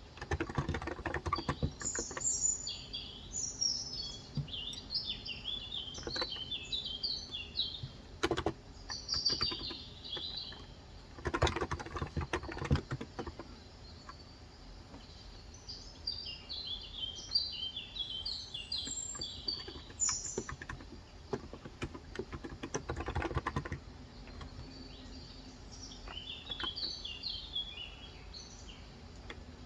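Typing in short bursts of key clicks on a COX Endeavour electro-capacitive tenkeyless keyboard with light 35 g switches. Birds sing in repeated high chirping phrases between the bursts, over a steady faint hiss of rain.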